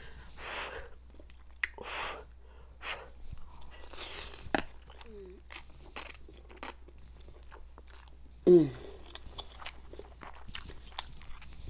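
Close-miked eating of stir-fried Korean noodles: several short slurps and wet chewing, with small clicks in between. About eight and a half seconds in comes a brief vocal sound that falls in pitch, the loudest moment.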